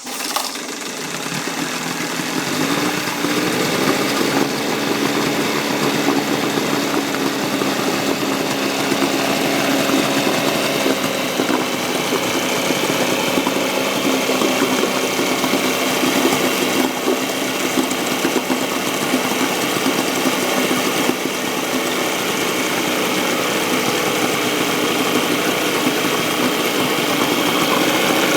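9.9 hp Evinrude two-stroke twin outboard motor running steadily with its engine cover off. Its pitch rises slightly a few seconds in, then holds even.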